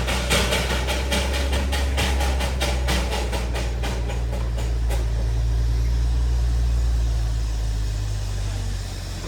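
Darjeeling Himalayan Railway train: a quick even beat of about four to five strokes a second over a steady low engine drone, the beat fading out about five seconds in while the drone carries on.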